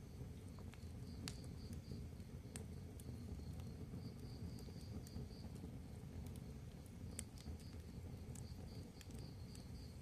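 Wood fire of split boards burning: a low steady rumble of flames with scattered sharp crackles and pops, the louder ones about a second in, about two and a half seconds in and about seven seconds in. A faint high chirping pulses in runs behind it.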